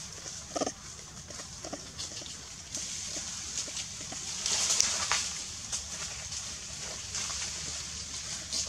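A few short macaque calls in the first two seconds, over a steady high hiss. A louder scuffling burst comes about halfway through.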